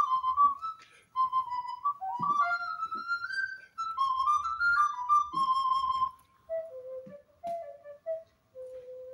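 Small wooden end-blown flute playing a solo tune in quick, ornamented notes. About six seconds in, the melody steps down to lower notes and settles on one held low note at the end.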